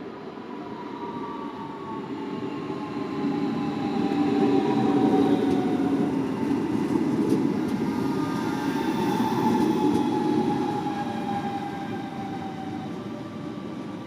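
DB Class 426 two-car electric multiple unit running by: a rumble of wheels on rail with several electric whining tones sliding down in pitch. It grows louder to a peak about five seconds in, then fades.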